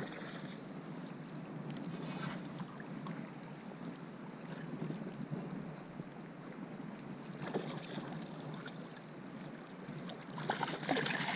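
Shallow bay water lapping and sloshing close to the microphone as the angler wades, with wind on the microphone. A few brief splashes break through, the loudest cluster near the end.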